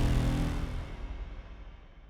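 Background music fading out at the end of a piece, its sustained low notes dying away.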